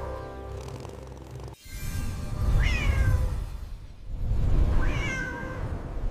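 A cat meowing twice, each a short high call that falls in pitch, about two and a half and five seconds in, over background music.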